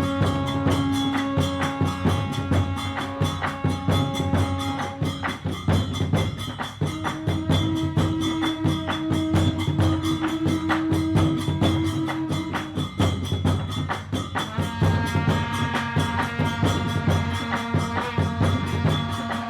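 Traditional Khmer ensemble of recreated Angkorian instruments playing: fast, steady percussion strokes under long held melody notes that shift to a new pitch every few seconds.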